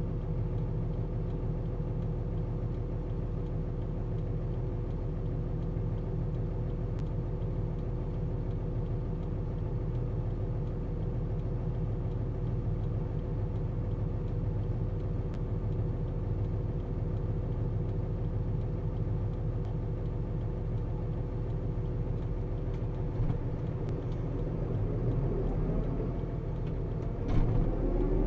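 Tractor engine running steadily while driving, heard from inside the cab; near the end the pitch rises briefly, with a couple of short louder peaks.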